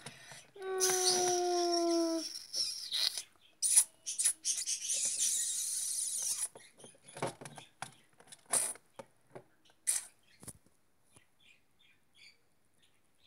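A child's voice imitating a whimpering dog: one long high whine, falling slightly. It is followed by a few seconds of rustling and then scattered light clicks and knocks as toy dogs are handled on a tabletop.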